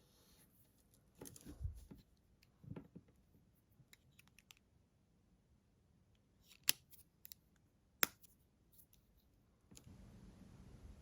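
Faint scraping and rubbing of hand-cleaning on AirPods, with a few small sharp plastic clicks about seven and eight seconds in. A soft steady hiss starts near the end.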